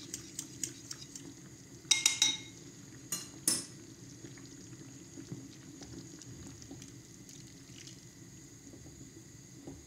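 A steel pot of meatball soup simmering steadily while an egg-yolk tempering mix is poured in and stirred. Utensils clink sharply against the pot and bowl a few times in the first four seconds, loudest about two seconds in.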